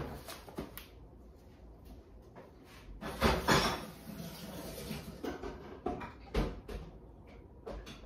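Scattered knocks and clicks of household handling, with a longer, louder scrape about three seconds in and a run of sharp clicks a couple of seconds later.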